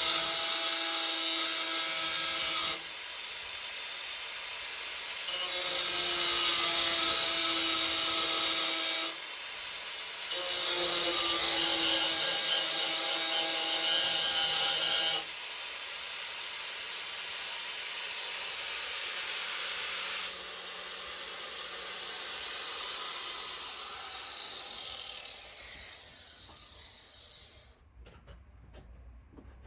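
Handheld power tool running in three loud bursts with quieter running between them, then switched off and spinning down with a falling whine.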